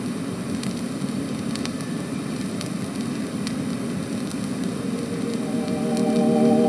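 Surface hiss and scattered crackling clicks of an old record, with soft organ music coming in near the end.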